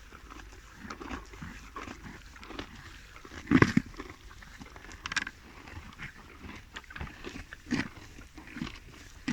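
Donkeys chewing carrots and hay: irregular crunches and munching, the loudest a little over three and a half seconds in.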